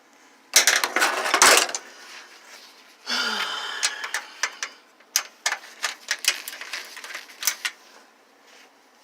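Hand tools and small metal parts clattering and clicking during a plasma TV teardown: a burst of rattling, then a string of sharp separate clicks as a driver is tried on the TV's small brass bolts.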